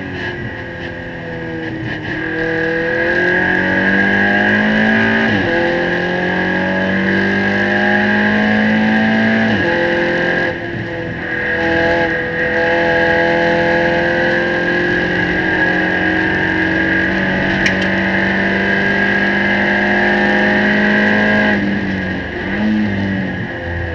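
Seat Leon Eurocup race car's turbocharged four-cylinder engine heard from inside the cockpit at full throttle, climbing in pitch and upshifting about five and ten seconds in. Then comes a long pull, and near the end the engine drops away under braking with a throttle blip on the downshift. A steady high whine runs over the engine.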